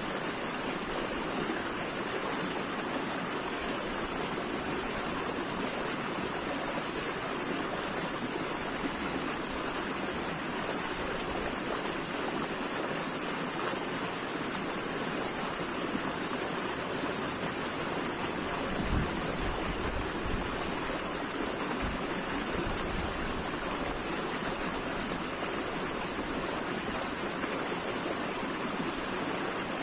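Flowing water rushing steadily and evenly, like a stream, with a brief low thump about two-thirds of the way through.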